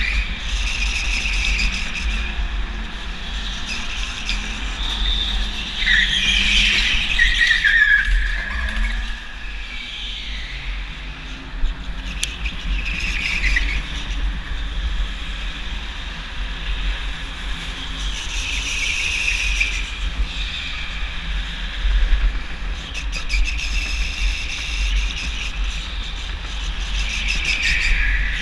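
Go-kart driven hard round an indoor track, its tyres squealing in the corners on the polished concrete, about every five seconds, one squeal sliding down in pitch. Under it runs a steady low rumble of wind and vibration on the kart-mounted microphone.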